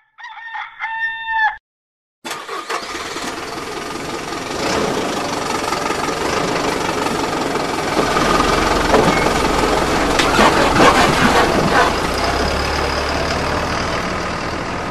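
A rooster crows once, then a truck engine starts about two seconds in and runs steadily, growing louder in the middle as the truck pulls away.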